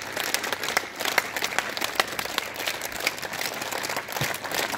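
A group of schoolchildren clapping with flat palms in a clapping drill. The claps come in a rapid, uneven run rather than one crisp beat, like many hands not quite together.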